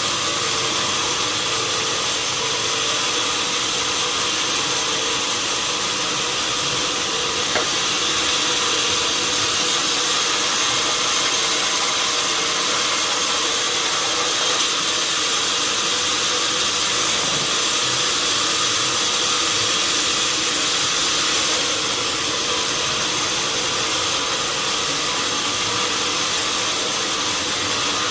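Sawmill machinery running steadily, a constant hum under a loud even hiss, with one brief sharp tick about a quarter of the way through.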